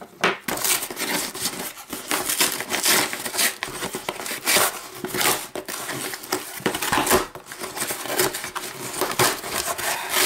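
Corrugated cardboard shipping box being torn open by hand: repeated irregular rustling, scraping and ripping of cardboard and packing tape.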